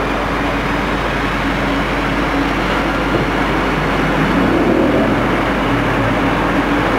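Electric locomotive hauling passenger coaches slowly past, a steady rumble of wheels on the rails with a faint continuous hum.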